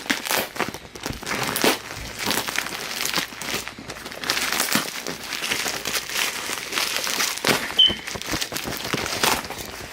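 Shipping packaging crinkling and rustling as it is handled and opened by hand, with many short crackles throughout.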